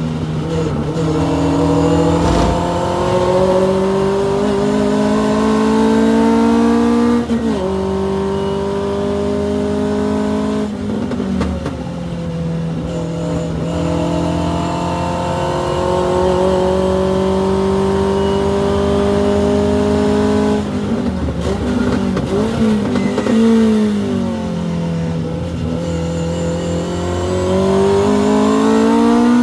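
Hillman Avenger's four-cylinder engine at full racing throttle, heard from inside the cabin. It climbs in pitch through the gears with upshifts about 7 and 11 seconds in, then falls as the car brakes, with short blips of downshifts about 21 to 23 seconds in. It pulls up again near the end.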